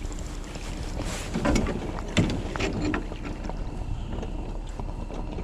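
Steady low wind rumble on the microphone, with a few short knocks and splashes around two seconds in.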